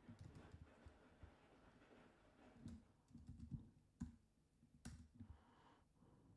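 Faint, scattered keystrokes on a computer keyboard: a handful of separate key taps at an uneven pace, the sharpest about four and five seconds in.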